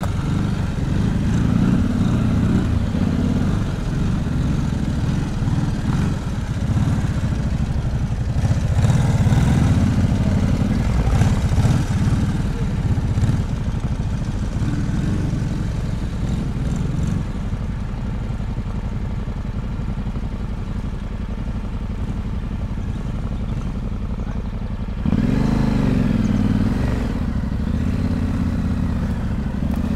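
Adventure motorcycle engine at low speed over rough ground, the throttle rising and falling, then settling to a steadier low run before a sudden burst of revs about 25 seconds in.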